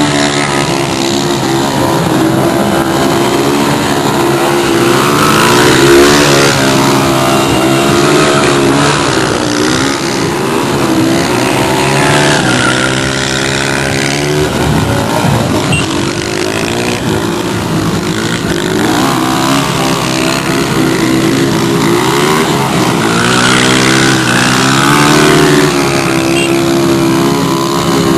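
Several motorcycle and car engines running and revving at once, loud throughout, their pitches wavering up and down.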